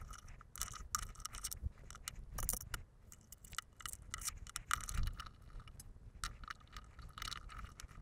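Faint, irregular clicks and scrapes of a Bandai S.H. Figuarts Shoretrooper plastic action figure being handled and posed, its joints bent and its feet set on a wooden tabletop.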